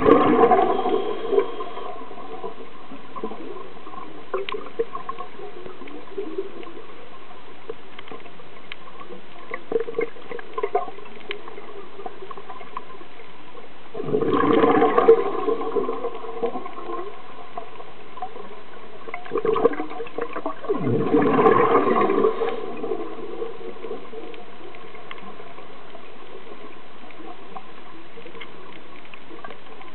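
Scuba diver's exhaled breath bubbling out of the regulator underwater, in gurgling bursts: one at the start, one about halfway through, and two more close together a few seconds later, over a steady hiss.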